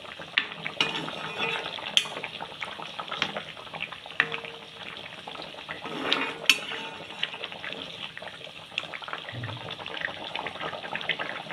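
Spoon stirring a simmering chicken curry in a cooking pot, clinking sharply against the pot many times at irregular moments over a steady hiss from the pot.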